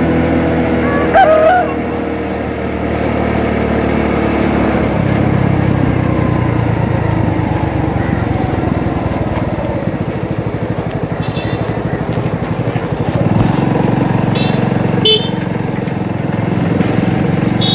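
Motorcycle engine running steadily under way, heard from the rider's seat. A brief horn toot comes about a second in, and a few short high-pitched chirps sound in the second half.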